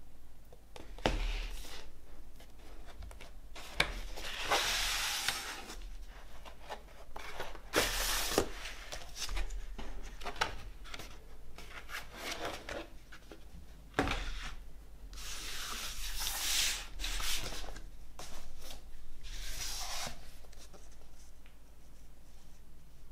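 A cardboard record jacket and its printed paper inserts being handled, slid out and laid down: a series of dry sliding swishes of paper and card, each a second or two long, with a few sharp taps in between.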